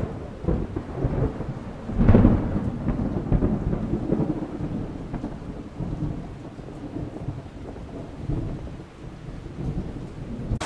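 Thunder rumbling from an approaching thunderstorm, swelling to its loudest about two seconds in, then rolling on as a lower, fading rumble.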